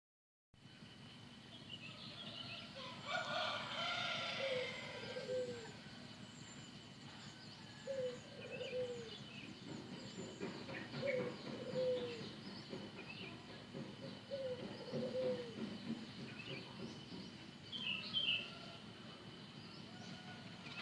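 Morning bird sounds: a rooster crows about three seconds in, followed by a string of short, falling lower calls every three seconds or so, with small birds chirping throughout.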